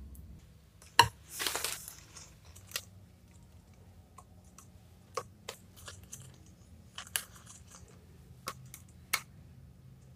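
Tableware handled at a meal: a sharp clink of a spoon and glass bowl about a second in, a brief scraping rush, then scattered light clicks and taps as whole bird's-eye chilies are picked from a small ceramic bowl and dropped onto the food.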